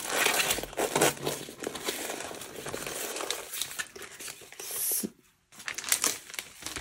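A diamond painting canvas being rolled up by hand, its plastic crinkling and rustling, with a brief pause about five seconds in.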